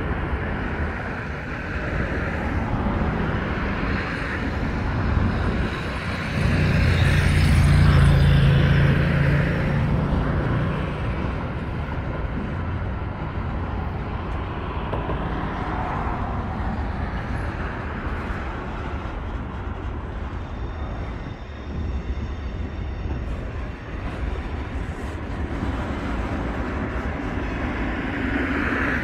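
CSX intermodal freight train rolling past with steady wheel and rail noise. A louder low hum swells for a few seconds about a quarter of the way in, then fades.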